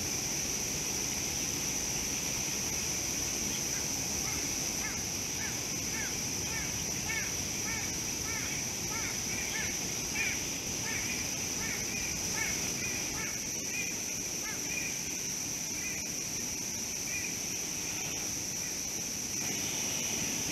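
A bird calls in a quick series of short chirps, about two a second, starting about four seconds in and fading out about two-thirds of the way through, over a steady high-pitched whine.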